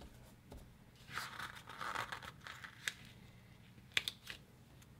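Paper planner stickers being peeled off their sheet and pressed onto a planner page: a papery rustling stretch about a second in, then a few sharp light clicks.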